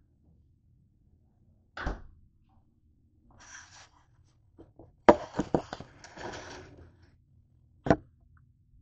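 Handling noise as a camera is moved about and set down on a kitchen counter: a thump, rustling, a quick cluster of sharp clacks about five seconds in, and a single knock near the end.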